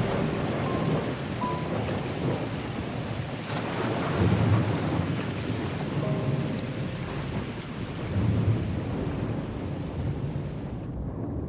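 Steady heavy rain with low rolls of thunder swelling about four and eight seconds in. The high hiss of the rain thins out just before the end.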